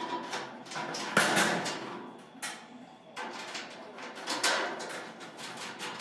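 Irregular knocks and clatter from a sheet-metal washing-machine cabinet as its parts are handled and fastened by hand. The loudest knock comes a little over a second in.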